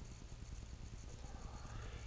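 Quiet room tone: a faint steady low hum and background hiss, with no distinct event.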